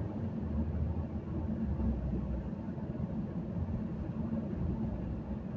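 Steady low rumble of a moving car heard from inside its cabin: engine hum and tyre noise on the road.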